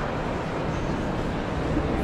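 Steady, indistinct crowd chatter and footsteps of many visitors, blurred together in a large echoing hall.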